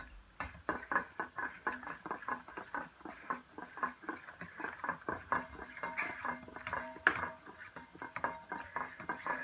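Pancake batter being stirred in a stainless steel mixing bowl: the utensil scrapes and clinks against the bowl in quick, even strokes, about four a second.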